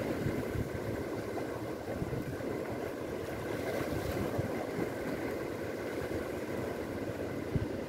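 Steady wash of sea water against the jetty rocks, an even rushing noise, with a faint steady hum underneath.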